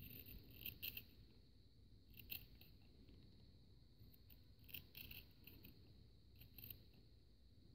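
Ordinary scissors cutting a CO2 therapy bath's neck seal, trimming it along one of its ridge lines: faint, short snips in four small clusters, one to two seconds apart.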